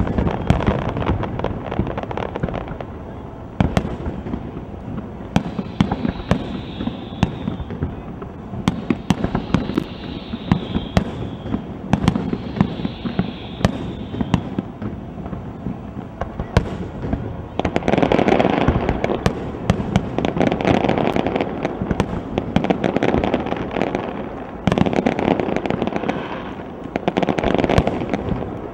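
Aerial fireworks shells bursting one after another in many sharp bangs. The last third becomes a denser, louder, continuous barrage.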